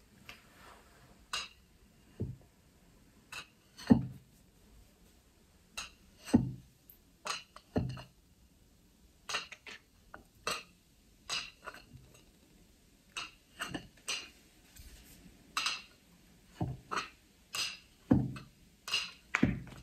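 A kitchen knife clinking and scraping against a small bowl and the cake stand as a cake is cut around the bowl: irregular sharp clicks, a few with a dull knock under them.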